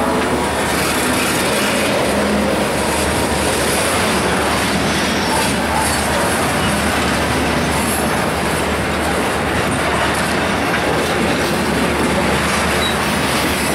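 Freight train cars rolling past close by, a steady, loud noise of steel wheels running over the rails.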